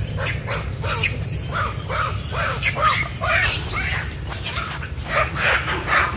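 A troop of long-tailed macaques squealing and chattering: many short, overlapping calls that rise and fall in pitch, over a steady low rumble.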